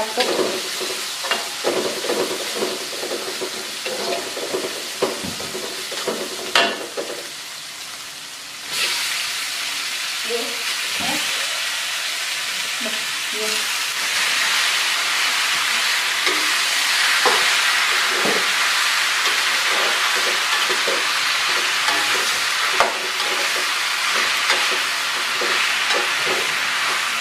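Metal spatula scraping and tapping in an aluminium wok while a chili-garlic paste fries with a light sizzle, with one sharp knock. About nine seconds in, wood ear mushrooms go into the hot wok and the sizzle jumps suddenly to a loud, steady hiss that carries on as they are stir-fried, the spatula clattering against the pan.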